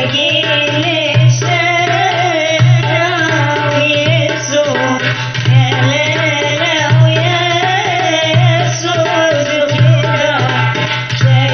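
Tunisian wedding-party song: a steady drum beat under a wavering, ornamented melody, with singing.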